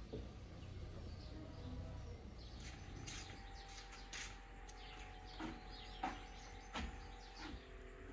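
Quiet ambience with scattered short bird chirps and a few sharp clicks, the sharpest about six and seven seconds in. A faint steady hum comes in a few seconds in.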